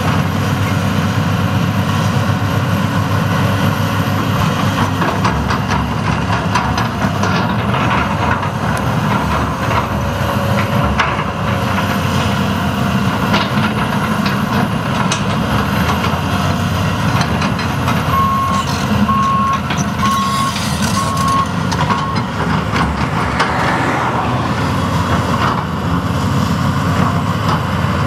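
John Deere 330C LC hydraulic excavator's diesel engine running steadily under load while it digs dirt with its bucket, with occasional knocks. About two-thirds of the way through, a backup alarm beeps four times.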